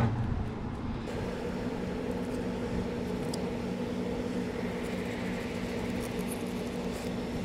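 A steady low mechanical hum with a few steady tones in it, under faint clicks and scrapes of a fillet knife working along a porgy.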